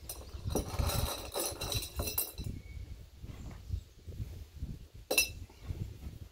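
Loose metal screws clinking and rattling as a handful is picked out of their container, for about two seconds, then one sharp clink about five seconds in.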